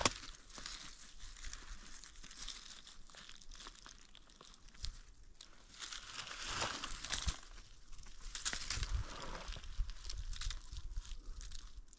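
Dry fallen leaves rustling and crackling as hands dig through the leaf litter to pull up a porcino mushroom, in uneven bursts that grow louder after about six seconds.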